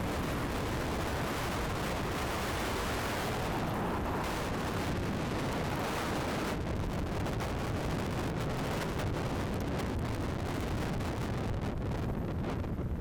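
Strong gusty wind buffeting the microphone: a continuous low rumble with a hissing top. The hiss thins out about six and a half seconds in.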